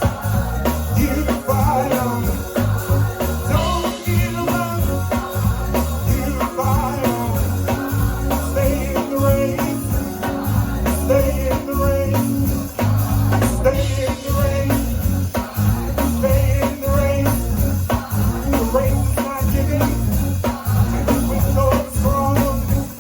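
Rock-style music with a singing voice, guitar and a steady beat with heavy bass.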